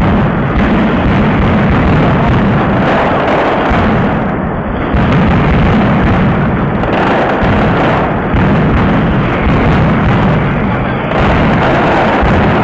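A loud, continuous barrage of daytime firecrackers bursting overhead, the bangs so dense they run together without a break.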